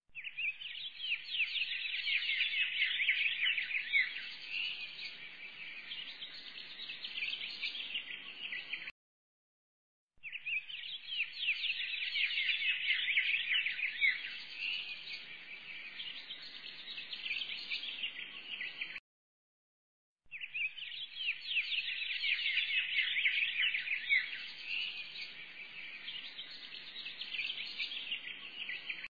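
A looped background recording of birds chirping. The same stretch of about nine seconds plays three times, with about a second of silence between repeats, and each pass is busiest in its first few seconds.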